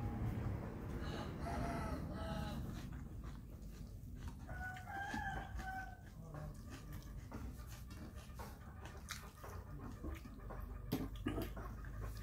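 A rooster crowing twice, faint, over soft eating sounds of fingers mixing rice on a steel plate with small clicks.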